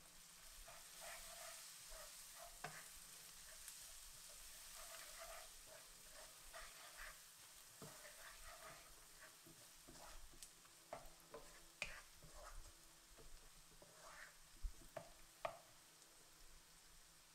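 Faint sizzling of onions and spices frying in oil while a wooden spoon stirs and scrapes them around a wok. In the second half come several sharp knocks of the spoon against the pan.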